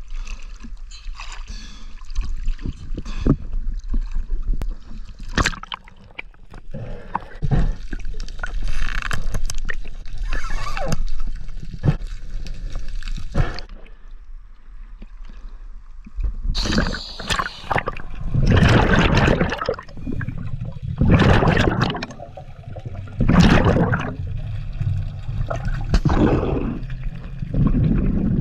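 Seawater sloshing and gurgling against a camera at the surface, with irregular splashes. In the second half it gives way to louder surges of bubbling water about every two seconds.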